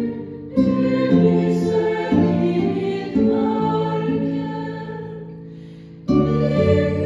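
A slow Taizé chant sung with plucked-string accompaniment, each phrase starting on a fresh chord that rings and fades away.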